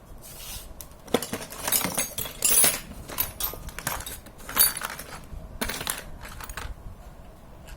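Small steel parts of a bicycle gear hub, washers and lock nuts, clinking and scraping against each other and the axle as they are handled and fitted, in a string of irregular metallic clicks.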